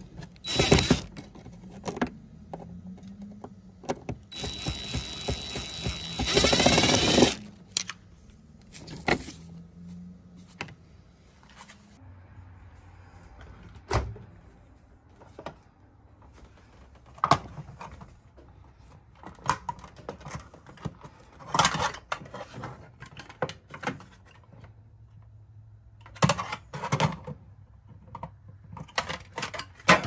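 A power screwdriver backs out the screws that hold an RV absorption fridge in place: a short burst about a second in, then a longer run from about 4 to 7 seconds. After that come scattered knocks and clicks as fridge parts and trim are handled.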